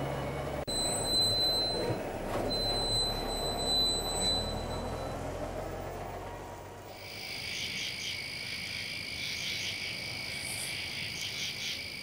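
A chorus of many frogs calling together, a dense steady trill of rapid pulses that sets in about halfway through. Before it, a low rumble with a thin high steady tone heard twice.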